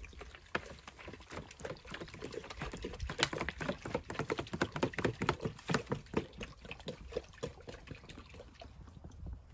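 Water glugging out of an upturned plastic bottle into a plastic bucket, a quick, uneven run of gulps that thins out near the end.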